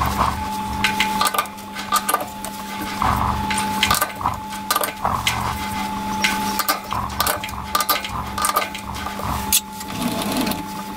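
Irregular metallic clicks and clanks of a lathe's four-jaw chuck being turned by hand and its jaws adjusted while the round stock is trued against a dial indicator. A steady low hum runs underneath.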